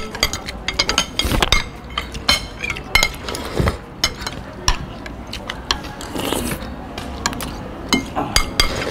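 Metal spoons and forks clinking and scraping on ceramic plates while eating noodles, a run of quick, irregular clicks and scrapes.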